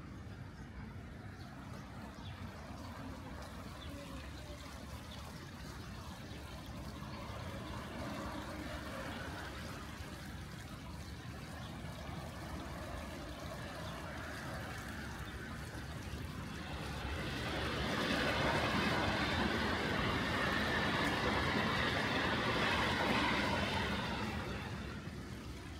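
Steady outdoor background noise, with a passing vehicle that grows louder about two-thirds of the way in, holds for several seconds and fades near the end.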